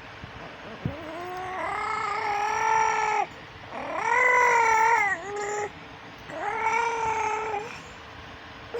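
A young girl imitating a cat with her voice: three long, drawn-out meows, the middle one the loudest.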